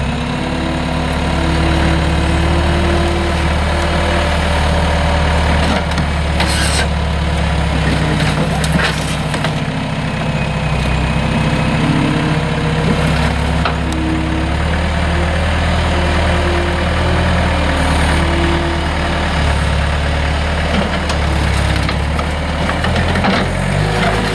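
Skid steer engine running steadily, its pitch shifting a little now and then as it works, with a few short knocks.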